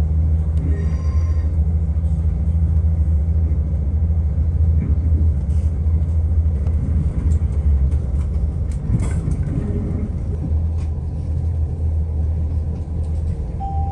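Steady low rumble and engine hum inside the carriage of an Irish Rail Class 22000 diesel multiple unit pulling away from a station, with a few faint clicks from the wheels and track.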